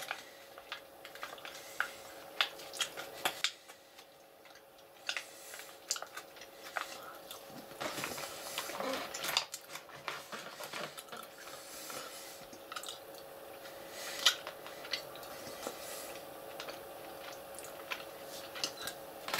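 A person chewing a soft, sticky protein chew: irregular faint smacking and clicking mouth sounds.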